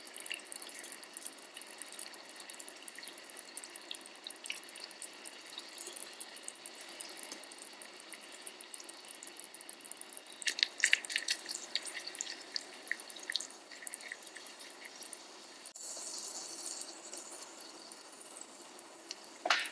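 Oil gently sizzling and crackling in a tiny ceramic dish heated by a tealight, frying dried anchovies, garlic and chili powder. A cluster of louder pops comes about ten seconds in, and a short sharp sound at the very end.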